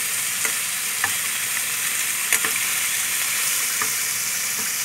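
Pork chunks and garlic sizzling steadily as they fry in their own rendered fat in a pan while being stirred and turned, with scattered short clicks and pops; one sharper click a little over two seconds in.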